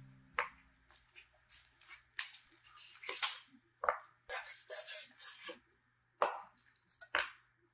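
Plastic meat wrap crinkling and rustling in short, irregular bursts as it is peeled off a foam tray of lamb chops, with a few soft knocks of the meat on a wooden cutting board.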